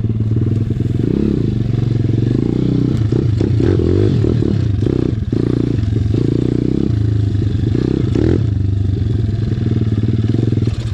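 SSR 170TX pit bike's single-cylinder four-stroke engine running hard under riding, the revs rising and falling over and over with throttle changes.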